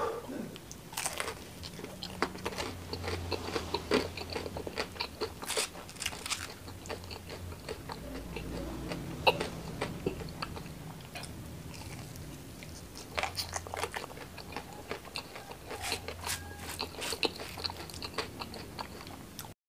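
Close-up crunching and chewing of crispy battered fried mushrooms with chili sambal: crackly bites with wet chewing between, and louder crunches every few seconds.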